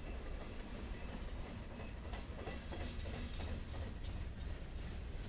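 Freight cars of a manifest train rolling past with a steady low rumble, and a run of wheel clacks over the rail joints about halfway through.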